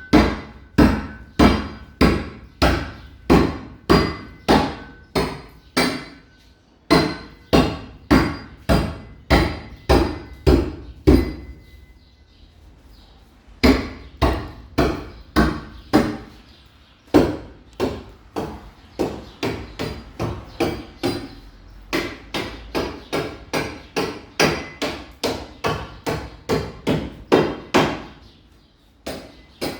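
A hammer striking repeatedly on a building site, in a steady rhythm of about two blows a second. The blows stop for about two seconds near the middle, then resume slightly faster.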